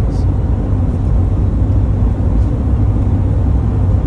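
A passenger van driving along a highway, heard from inside the cabin: a steady low rumble of engine and road noise.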